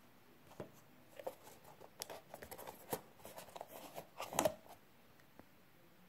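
Hands handling a card box and lifting a plastic wristband out of its card insert: scattered light clicks, taps and scrapes of card and plastic, busiest in the second half, with the loudest knock about two thirds of the way in.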